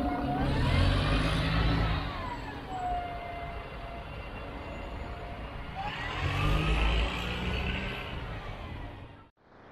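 City bus pulling away, its diesel engine rumbling with a whine that rises and falls twice as it accelerates. The sound cuts out briefly near the end.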